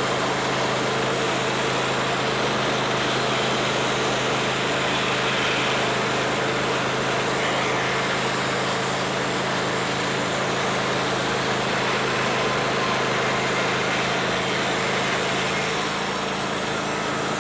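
Homemade band sawmill running steadily mid-cut: its small engine hums at a constant speed under load while the band blade saws along a log. The sound eases slightly near the end.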